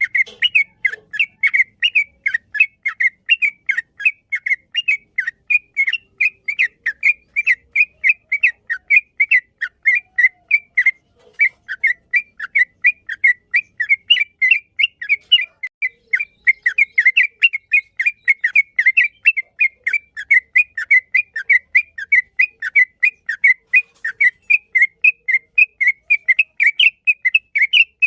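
Yellow-vented bulbul (trucukan) singing a long, unbroken run of short, bright chattering notes, about four a second, with one brief pause partway through.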